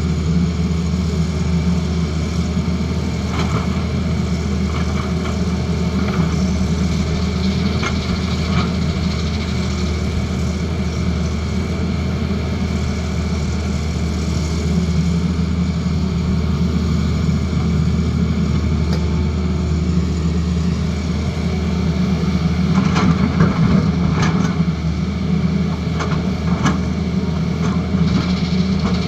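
Tata Hitachi Zaxis excavator's diesel engine running steadily, with scattered clicks and knocks over it that come more often and a little louder about three-quarters of the way through.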